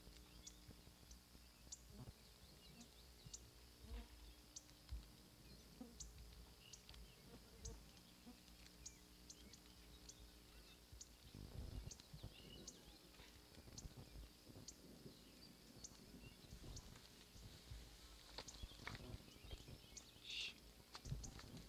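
Near silence: faint outdoor background with a soft, regular ticking about every two-thirds of a second, and a brief bird chirp near the end.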